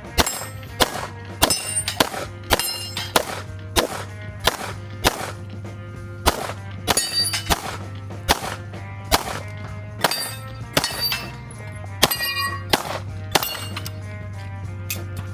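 Rapid gunfire, about two shots a second, with many shots followed by the ringing clang of a steel target being hit.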